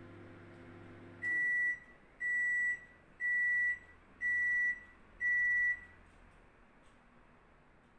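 Five electronic beeps, evenly spaced about one a second, each about half a second long at the same steady high pitch.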